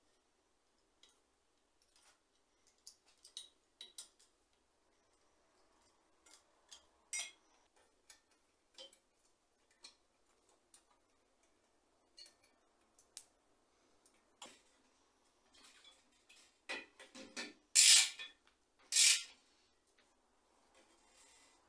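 Small metallic clicks and taps of hand tools on bicycle brake hardware as the brake lever and front caliper brake are fitted and tightened. Near the end come two louder scraping sounds about a second apart.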